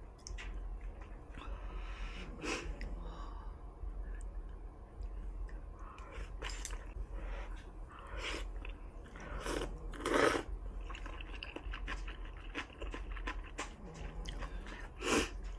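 Close-miked chewing and wet mouth sounds of a person eating a hot pot of vermicelli noodles and tofu, a steady run of small clicks broken by several louder bursts.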